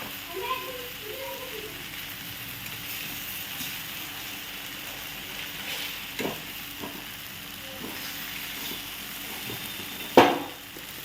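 Shredded cabbage sizzling as it fries in oil in a karahi, with a few scrapes and knocks of a utensil against the pan and one loud clank about ten seconds in.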